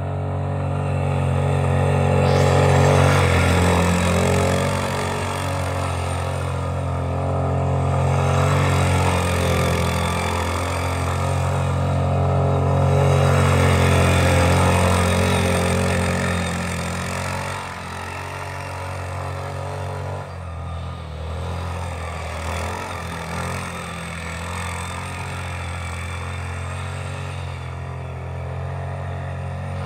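ATV engine working under load while the quad drives through deep snow. The engine swells and eases twice with the throttle in the first half, then settles to a lower, steadier running note a little past halfway.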